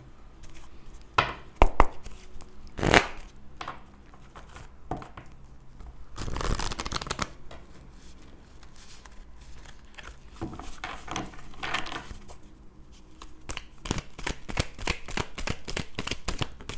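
Oracle cards being handled and shuffled on a wooden table: a few sharp taps of the deck, a longer rustling shuffle about six seconds in, then quick runs of flicking, clicking shuffles toward the end.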